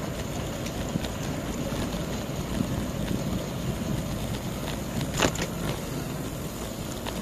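Wind rumbling on the microphone with road noise while riding a bicycle, and one sharp clack about five seconds in.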